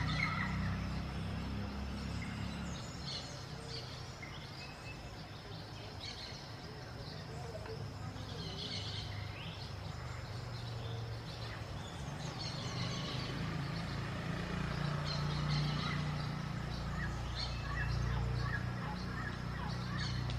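Parakeets giving short, scattered chirps over a steady low background rumble.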